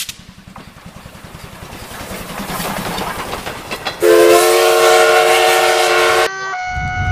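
Cartoon steam locomotive chuffing in a quick rhythm, growing louder as it approaches, then sounding a loud steam whistle chord for about two seconds. Just after the whistle stops, a railroad crossing warning signal starts ringing in alternating tones over a low rumble.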